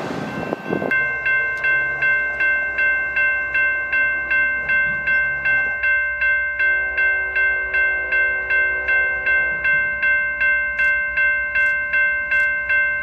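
Railroad grade crossing bell ringing steadily at about two strikes a second as a train approaches. A distant diesel locomotive horn sounds a long blast about six seconds in. Briefly at the start, the rumble of a passing train cuts off.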